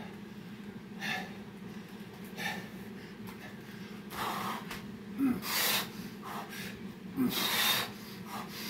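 A man breathing hard from the exertion of burpees: a series of sharp, forceful breaths, faint at first and stronger from about four seconds in, over a steady low hum.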